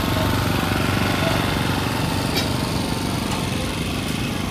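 Steady engine drone with one sharp click about halfway through.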